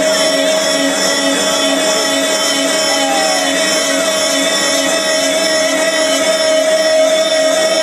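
Loud electronic dance music from a festival sound system: a sustained synth drone with a lower note pulsing about twice a second.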